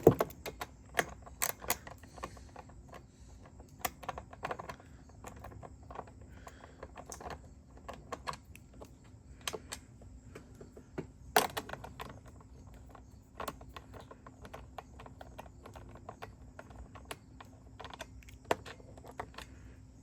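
Irregular metallic clicks and taps of hand tools working the 8 mm bolts on top of a lawn mower to take off its cover, with a few louder knocks.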